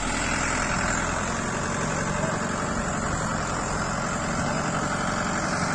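Mahindra tractor's diesel engine running steadily, the tractor working a rotary tiller in deep, flooded paddy mud.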